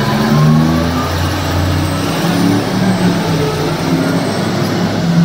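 Diesel engine of a large mining haul dump truck running loudly as the truck drives close past, its engine note shifting up and down a little.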